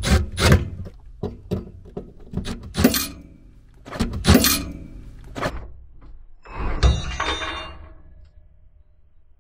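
Cordless impact driver hammering briefly on a screw at the mount of a furnace's ceramic hot surface igniter: a run of sharp knocks, then a longer rattling burst with a high ringing about six and a half seconds in. Driving it with an impact tool cracks the fragile igniter.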